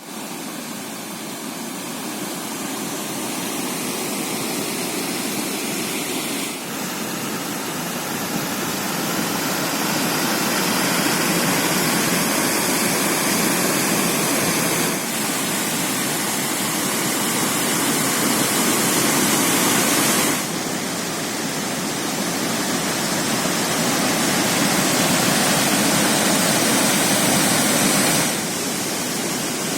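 Water pouring over a river dam and waterfall: a steady, loud rush. Its level and tone shift abruptly several times.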